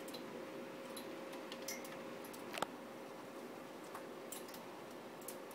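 Scattered small clicks and taps, with one sharper click about halfway through, as a rosy-faced lovebird scrambles about on the wire floor and plastic base of its cage. A faint steady hum sits underneath.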